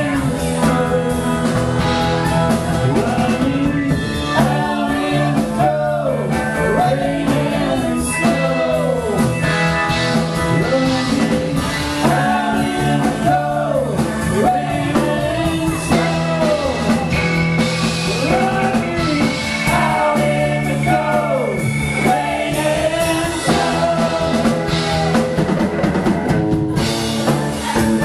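Live rock band playing a blues-rock jam: bowed violin, electric guitar, keyboard, bass and drum kit, with a melody line that bends up and down in pitch over the band.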